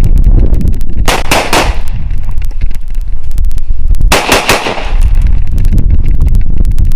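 Gunshots from a rifle or pistol, fired in two quick strings of several shots each, about three seconds apart.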